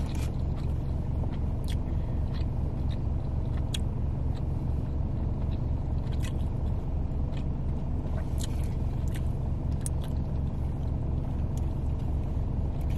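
Car engine idling, a steady low hum with a fast even pulse heard from inside the cabin, with scattered small clicks of someone chewing food and a sip through a straw near the end.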